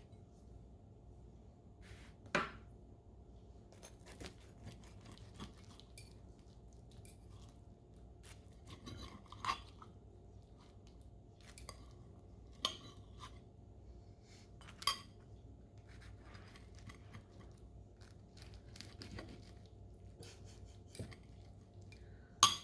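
Dishes and utensils clinking and knocking now and then in a kitchen: a handful of sharp clinks among softer taps and clicks.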